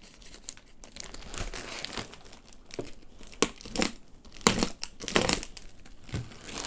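Orange plastic mailer bag crinkling and rustling as it is handled, with irregular sharper crackles, the loudest a little past the middle.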